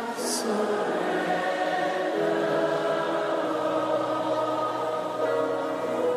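Worship singing: a choir of voices holding long sustained notes that shift to new chords every second or two, with a brief hiss just after the start.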